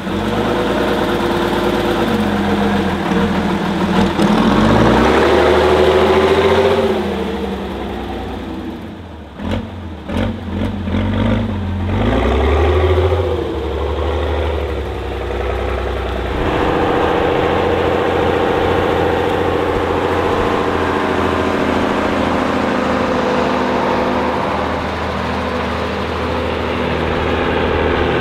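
Off-road trial truck engine revving, its pitch climbing and falling several times, then running at a steady speed through the second half.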